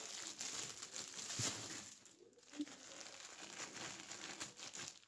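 Plastic bag and wrapping crinkling and rustling as they are handled, in two stretches with a short break about two seconds in.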